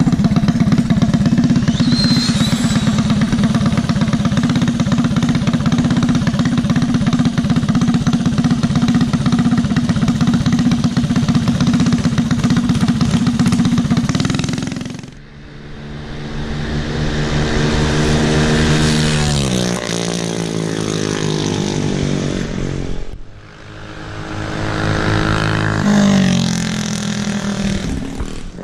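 Small minibike engine running steadily close by, then after an abrupt break its pitch slides down. After a second abrupt break the pitch rises and falls again as the throttle is worked.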